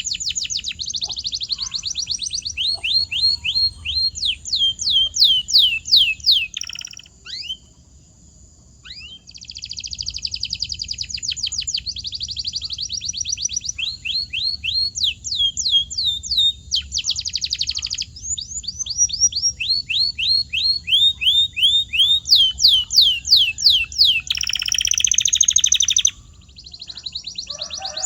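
Domestic canary singing: long tours of rapidly repeated high notes, many sweeping downward in pitch, with a short break about seven seconds in and a harsher, buzzier phrase near the end.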